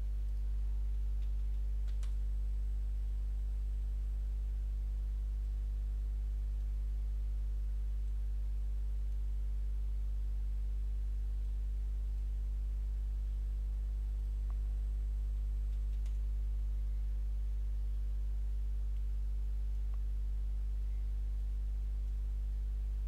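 Steady electrical mains hum, a low 50 Hz tone with a stack of its overtones, picked up by the recording chain. A faint click sounds twice, about 2 seconds in and again near the middle.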